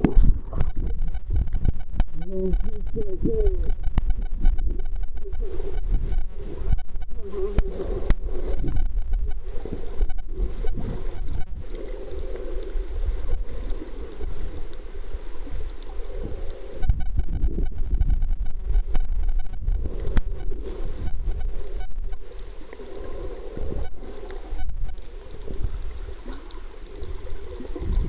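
Underwater sound picked up by a camera held under the sea: a muffled low rumble of moving water, with bubbles gurgling and many small clicks.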